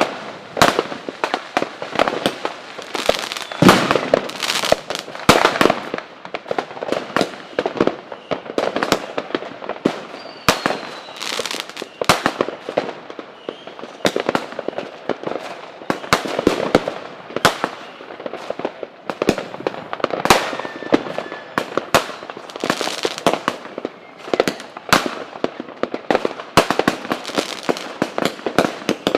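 Fireworks going off in a dense, continuous barrage: many sharp bangs and crackles a second, in uneven louder clusters.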